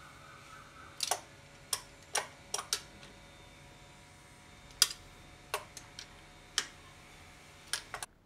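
A ratchet socket wrench being worked on engine bolts: sharp metallic clicks and clinks, about a dozen, irregularly spaced, some in quick pairs, over a faint steady hum. The sound cuts off abruptly near the end.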